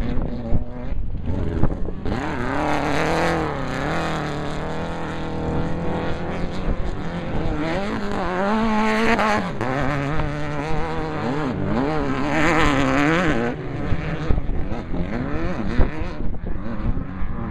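Off-road desert race car engine revving up and down repeatedly as it accelerates, over rough noise. The engine sound drops away after about thirteen seconds, leaving rough noise and jolts.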